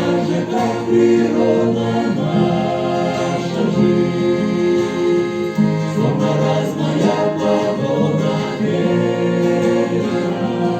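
Music: a Christian choir song, voices holding sustained chords over instrumental backing.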